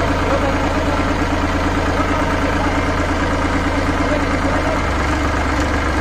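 Massey Ferguson 7250 DI tractor's diesel engine idling steadily.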